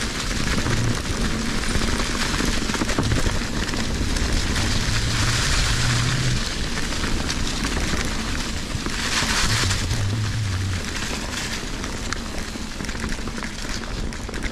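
Fezzari Cascade Peak mountain bike ridden over a dry, leaf-covered dirt trail: a steady crackling rush of tyres on leaves and dirt, with many small knocks and rattles from the bike over bumps. It gets louder and hissier twice, about five seconds in and again near ten seconds.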